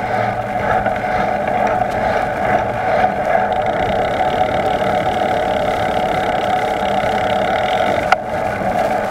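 Steady rush of wind on the microphone and tyre noise from a bicycle rolling along a road at speed, with one short sharp click about eight seconds in.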